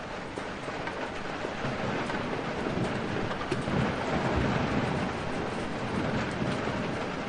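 Steady heavy rain with a low roll of thunder that builds about two seconds in, peaks midway and fades toward the end.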